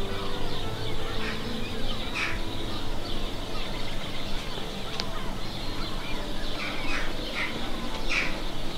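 Birds calling outdoors: short, harsh calls heard about six times, in two clusters near two seconds in and near the end, over a steady background hiss.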